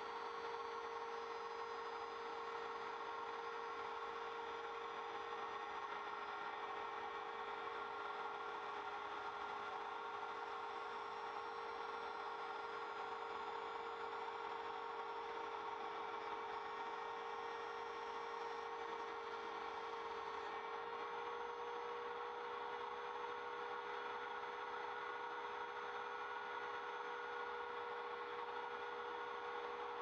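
Trim router spindle on an MPCNC Primo CNC machine running steadily with a high whine while its 1/8-inch single-flute end mill cuts through plywood. The tone shifts slightly about two-thirds of the way through.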